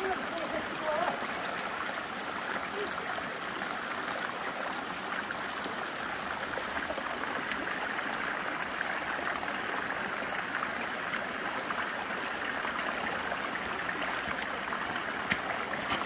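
Shallow, rocky mountain stream running over stones: a steady, unbroken rush of water.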